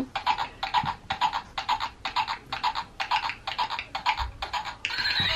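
A plush hobby horse toy plays its recorded sound effect: an even clip-clop of hoofbeats, about three a second. Near the end a recorded horse whinny begins.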